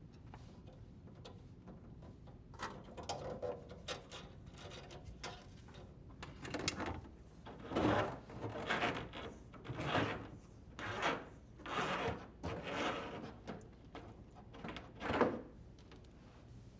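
Rubber dishwasher drain hose being pulled through the cabinet opening: a run of scraping, rustling strokes about one a second, louder from about a third of the way in.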